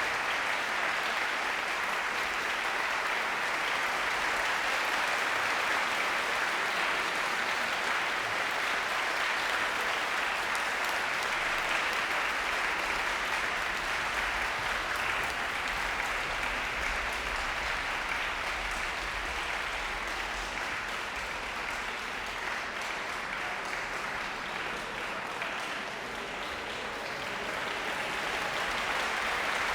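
Concert audience applauding steadily, a dense wash of clapping that eases slightly near the end and picks up again.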